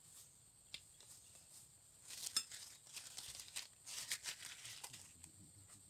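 Faint rustling and scraping as dishes, a spoon and food containers are handled, loudest about two to five seconds in, over a steady high insect drone.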